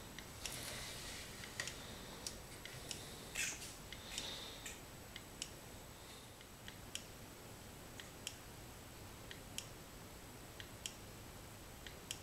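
Homemade rotary-displacer Stirling-type heat engine running slowly, giving a faint, regular click about once every 1.3 seconds as it turns. In the first few seconds there is some rustling and a few irregular clicks.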